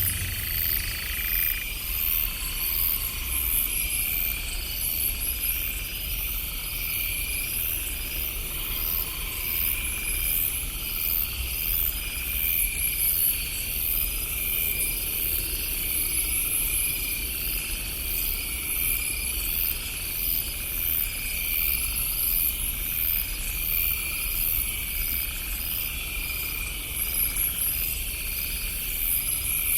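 Night insects chirping in steady repeating pulses, over a low steady rumble.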